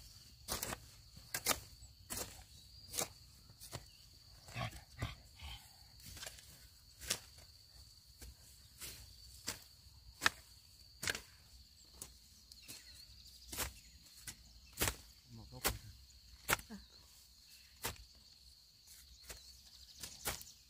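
Irregular sharp knocks or strikes, about one or two a second, over a steady high-pitched insect drone.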